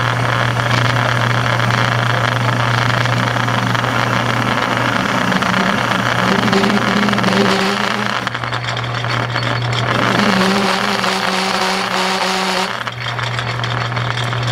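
Metal lathe running in back gear with a steady motor hum while the tool takes a facing cut across a large-diameter metal pulley blank, a dense rasp of cutting. Twice in the middle a steady tone rises out of the cut: chatter, which the large diameter brings on.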